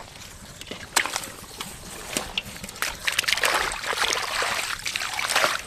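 Hands splashing and squelching in shallow muddy water, with irregular wet slaps and spatters that come thicker and louder in the second half.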